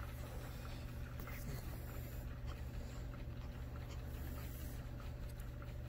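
Quiet room tone: a steady low hum with faint rustling and a few small clicks.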